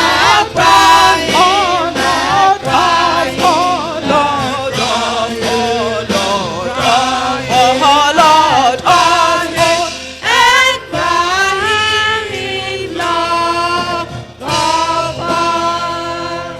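Church congregation singing a gospel hymn together, many voices holding long notes in phrases with short breaks between them.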